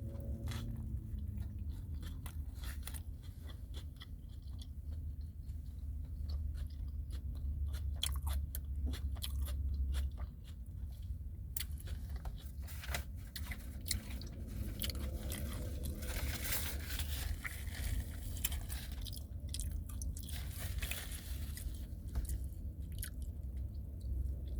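A person biting into and chewing a McDonald's McRib sandwich (boneless rib patty with onions and pickles on a roll) close to the microphone: crunching and chewing with many small mouth clicks.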